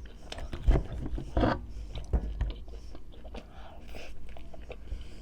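Close-miked mouth sounds of a person chewing and biting food, irregular and wet, with a few sharper knocks in the first half.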